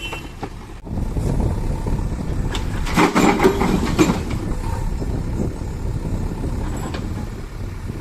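Heavy diesel machinery engine running steadily, with a louder burst of clattering about three to four seconds in.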